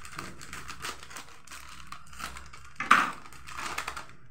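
Scissors snipping through a metallised plastic snack packet, with the packet crinkling as it is handled and pulled open; one louder crinkle about three seconds in.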